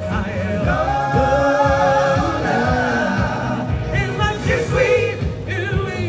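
A male ensemble sings a show tune through microphones over a backing track with a steady beat. The voices hold one long note for about three seconds, then break into shorter phrases.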